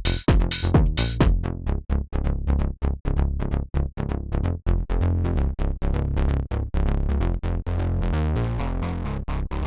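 Electronic melodic techno loop in F minor playing back: a steady drum-machine beat over a deep synth bass. The bright top end drops away about a second in, leaving a duller beat.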